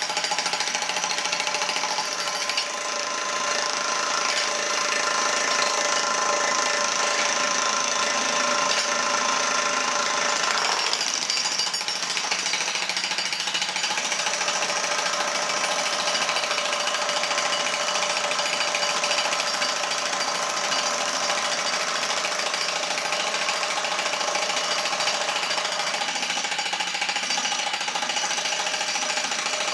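Two corded electric demolition breakers, a 15 kg Hilti TE 1500 and a 30 kg DeWalt, hammering their points into concrete blocks together in a steady, continuous pounding. The machine tone shifts about eleven seconds in.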